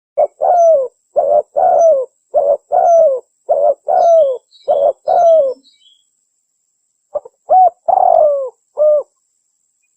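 Spotted dove (tekukur) cooing, used as a lure call. It is a run of short coos, each phrase ending in a falling note, and breaks off for about a second before a second bout. Faint high chirps from a small bird come in near the middle.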